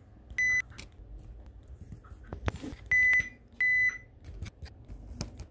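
Three electronic beeps at one steady pitch: a short one near the start, then two longer ones close together about three seconds in. Small clicks of a precision screwdriver working the phone's frame screws sound between them.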